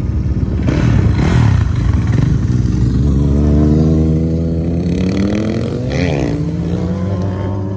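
Sport motorcycle engine running hard, its pitch climbing steadily as it accelerates, with a brief sharp swing in pitch about six seconds in before it settles to a steady note.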